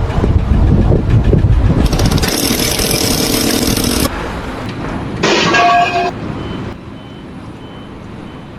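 Heavy vehicle noise: a low engine rumble, then a hiss of about two seconds, then a short horn blast a little after five seconds in.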